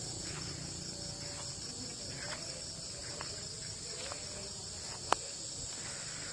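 A steady high-pitched chorus of insects chirping, typical of crickets, with a few faint ticks and one sharp click about five seconds in.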